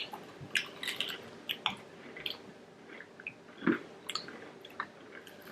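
A person chewing fried onion rings close to the microphone: irregular small clicks and mouth noises, with one louder one a little under four seconds in.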